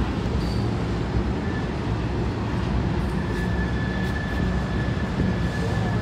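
Freight train of tank cars rolling past with a steady rumble of wheels on the rails. A faint thin high tone joins about halfway through.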